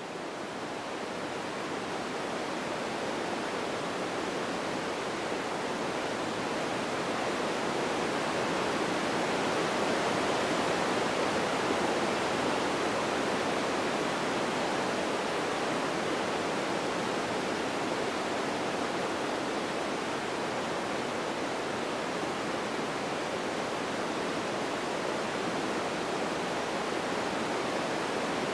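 A steady, even rushing hiss that fades in over the first few seconds and then holds level, with no motor whine in it.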